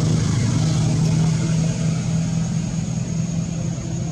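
A motor engine running steadily, a low hum that eases off a little near the end, with a thin high steady tone above it.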